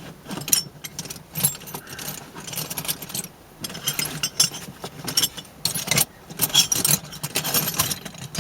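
Metal hand tools and a steering wheel puller with J-hooks clinking and rattling as they are handled and fitted to the steering shaft, with irregular clicks and short jangles and a few brief pauses.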